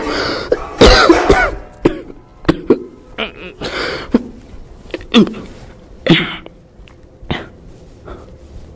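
A man coughing in a series of harsh, throaty coughs about a second apart, with rough voiced sounds in them, growing weaker near the end.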